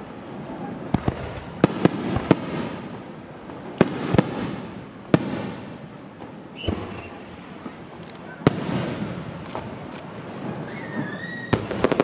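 Aerial firework shells bursting overhead: a string of sharp bangs, several in the first five seconds and another about eight seconds in, with crackling and rumbling between them, then a dense run of crackling bangs near the end.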